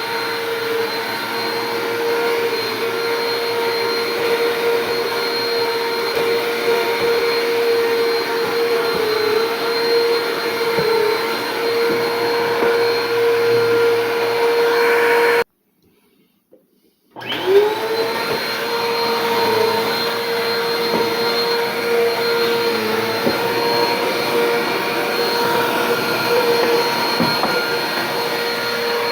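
Bissell Power Force Compact vacuum cleaner running with a steady motor whine that dips slightly in pitch now and then. About halfway through the sound cuts out for under two seconds, then the motor comes back and its whine rises as it spins up to speed.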